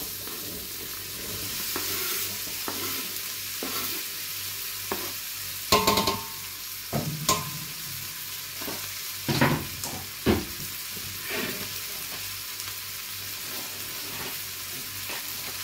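Diced onions sizzling in a pot of melted margarine, a steady frying hiss, with a handful of sharp knocks and scrapes from a wooden spatula stirring them about halfway through.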